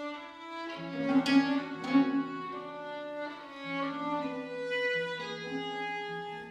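Violin and viola da gamba playing together: the gamba holds long low notes that change pitch a few times while the violin plays a melody above, with two sharply accented bow strokes a little over a second in.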